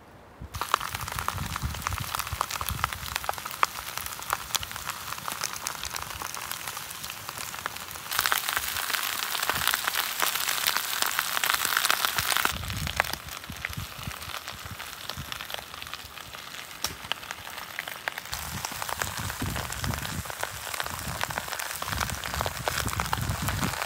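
Lamb sizzling in a wide metal pan over a wood fire: a dense crackling hiss that starts about half a second in and is louder for a few seconds in the middle, with occasional low bumps.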